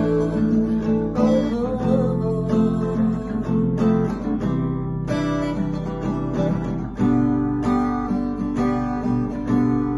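Acoustic guitar strumming chords in an instrumental passage of a song, with a chord change about seven seconds in.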